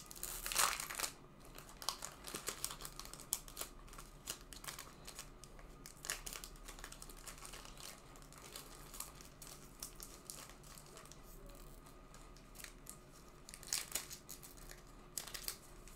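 Plastic wrapper of a trading card pack crinkling and tearing as it is opened by hand, in irregular rustles and small clicks, loudest in the first second and again near the end.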